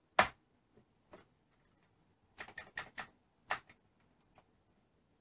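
Commodore 64 keys being pressed: a handful of sharp, irregular clicks, the loudest about a quarter second in and a quick run of them around the middle. The keyboard is being tested because its return key is not working, which the owner puts down to dirt on the contact.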